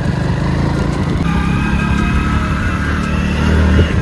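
Motorcycle engine running under way, with a steady rapid low pulsing. A steady higher-pitched tone sits over it from about a second in until near the end.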